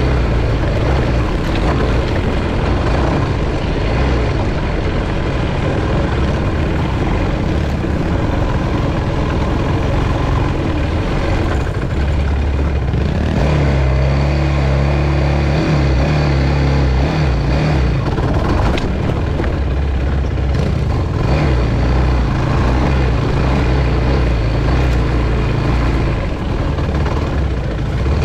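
Yamaha YFZ450 quad's single-cylinder four-stroke engine running continuously as it rides a dirt trail, heard close up from the quad's own mount. The revs rise and fall several times around the middle as the throttle is worked.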